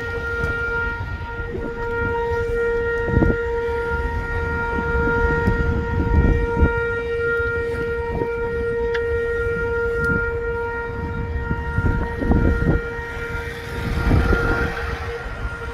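A horn sounding one steady, unbroken note throughout, over gusty low rumbling with a few dull thumps.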